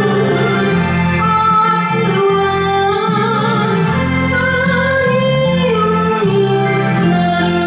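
A woman singing a slow enka ballad in Japanese over a karaoke backing track, with long held notes over a steady bass line.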